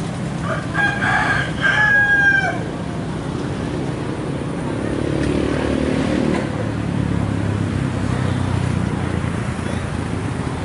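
A rooster crowing once, about half a second in: a loud call of about two seconds in three linked parts, ending on a falling note, over a steady low background rumble.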